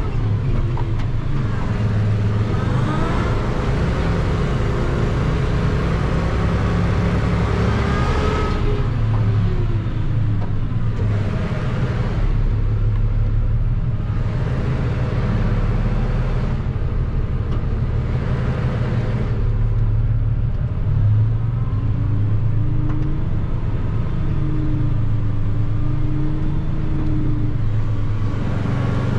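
Delivery truck's engine running steadily while it creeps and maneuvers, with the engine note rising and falling at times. Brief bursts of higher rushing noise come and go every few seconds.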